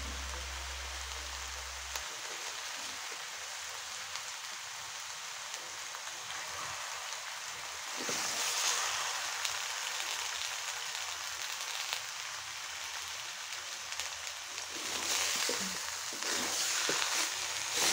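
Boiled potatoes and spices sizzling in hot oil in a wide metal wok, with a metal spatula scraping and knocking as they are stirred: aloo chop filling being fried. The sizzle swells about eight seconds in and again near the end as the stirring picks up.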